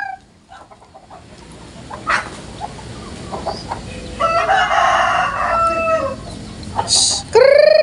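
A village rooster crowing: one long crow lasting about two seconds, around the middle. A short, loud, rising cry follows near the end.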